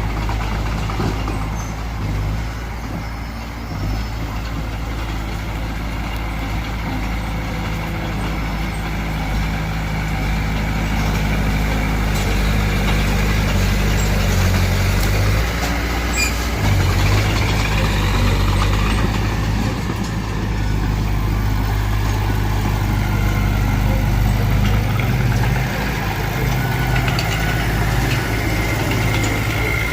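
Heavy diesel engine running steadily, working a little harder and louder from about twelve seconds in.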